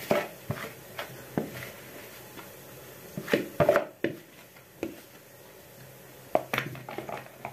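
Plastic mixing bowl knocking and scraping against a plastic cutting board as soft potato dough is tipped and scraped out onto it: scattered light knocks, with the loudest cluster about three and a half seconds in and another short one near the end.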